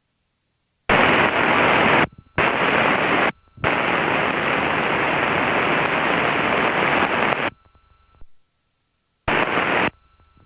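Aircraft radio tuned to the 121.5 MHz emergency frequency breaking squelch: four bursts of static hiss that cut in and out abruptly, the longest about four seconds. The pilot takes it for someone keying a transmitter too far away to be understood.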